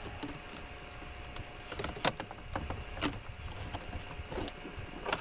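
A few sharp clicks and knocks of fishing gear being handled aboard a boat, the loudest about two and three seconds in, over a low steady rumble and a faint steady hum.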